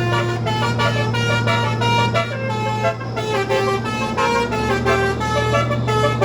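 Telolet multi-tone air horn on an old truck playing a quick melody, its notes changing several times a second, over a steady low hum.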